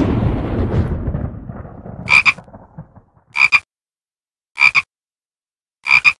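Title-card sound effects: a deep boom that dies away over about three seconds, then four short, pitched double calls about every 1.3 seconds.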